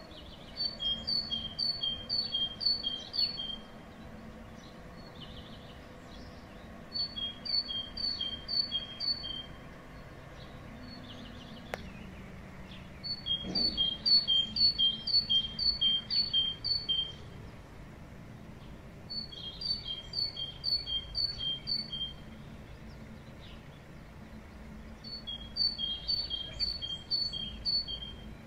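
Great tit singing its spring song: five bouts of a rapidly repeated two-note phrase, a higher note then a lower one, each bout a few seconds long with pauses of a few seconds between.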